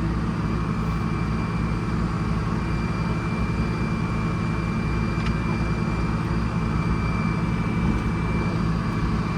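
A sawmill's bus engine running steadily, with a thin, steady high whine over it that fades out near the end.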